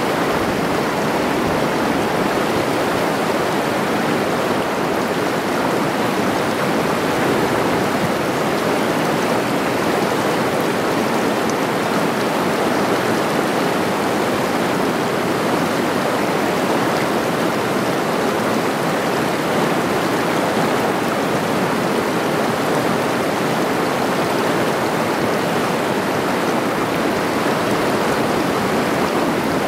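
River water rushing over rocks and rapids below a waterfall: a loud, steady, unbroken rush.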